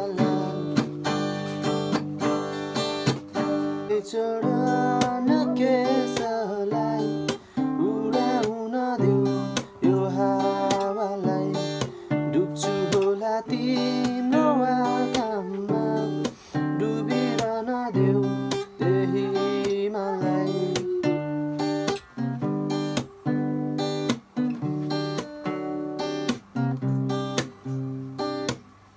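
Acoustic guitar being played, chords strummed and picked with melody notes changing throughout.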